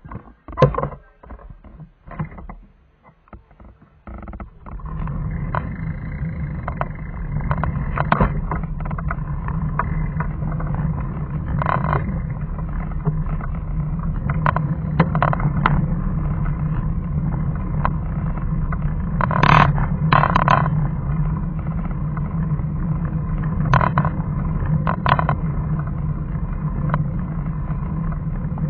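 Road vehicle driving along a winding road: a steady engine hum with road and wind noise that sets in about four seconds in, after a few scattered knocks and rustles. Occasional short knocks and rattles sound over it.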